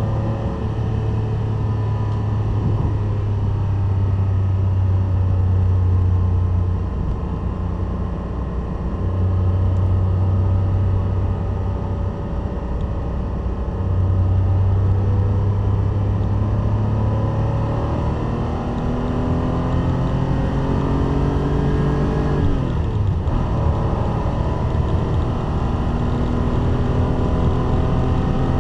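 Air-cooled flat-six of a classic Porsche 911 pulling hard on track, heard from inside the cabin. Its note climbs steadily through the revs and drops back briefly at gear changes or lifts, a few times, most sharply about two-thirds of the way through.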